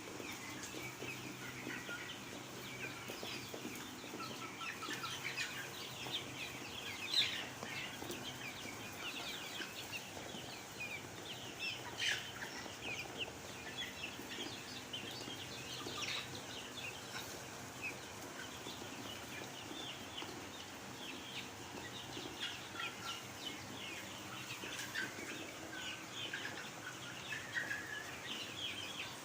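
A flock of chickens calling continuously with dense, overlapping chirps and clucks over a steady low hum, with a brief louder sound about seven and twelve seconds in.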